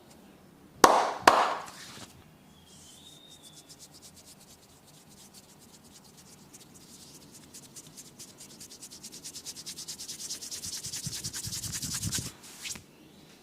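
Massage hands rubbing fast and rhythmically against skin, growing steadily louder for several seconds before stopping. Two sharp hits come about a second in, and another just after the rubbing stops.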